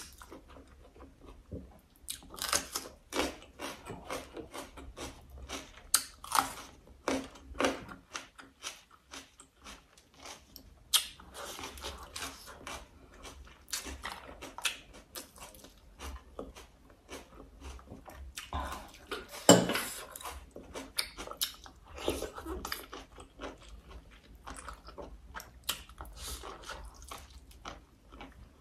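Close-miked eating: irregular crunchy bites and chewing of a meal of braised crab, raw chili and rice eaten by hand, with one loud sharp crunch about two-thirds of the way through.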